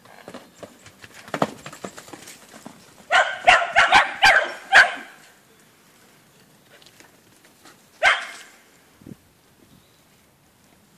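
A dog barking: a quick run of about six barks, then a single bark a few seconds later.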